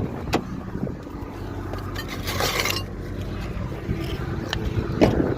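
Workshop sounds: a steady engine-like hum with sharp metallic clicks, and a brief hiss about two seconds in.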